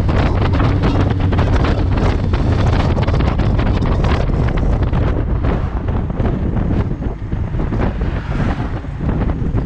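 Heavy wind buffeting the microphone of an open tube-chassis car at road speed, with the car's engine droning steadily underneath.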